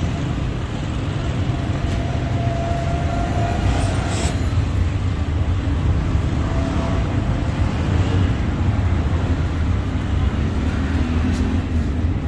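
Street traffic: a steady low rumble of vehicle engines, with a brief sharp sound about four seconds in.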